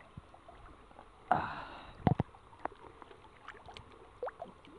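Stream water splashing and sloshing around people wading chest-deep and feeling for fish by hand: one splash a little over a second in, a sharp slap of water around two seconds, then scattered small plops and drips.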